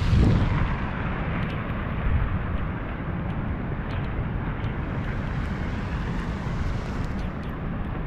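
Wind buffeting a GoPro's microphone in a rainstorm: a loud, steady, rushing rumble, strongest in the low end and swelling at the start, with a few faint ticks, likely raindrops striking the camera.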